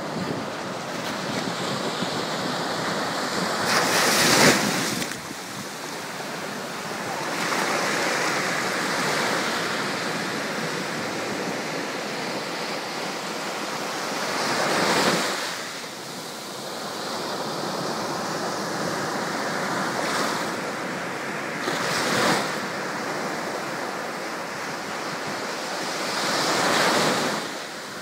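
Mediterranean surf breaking on a sandy beach: a steady wash of foam rushing over the sand, with four louder wave crashes, the loudest about four seconds in.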